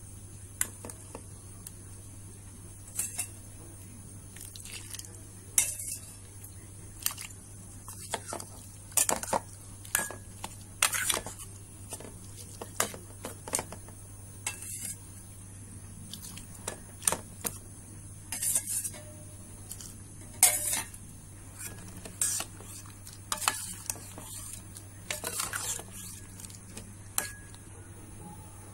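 A metal spoon stirring stew in a steel pot, clinking and scraping against the pot's sides and bottom at irregular intervals.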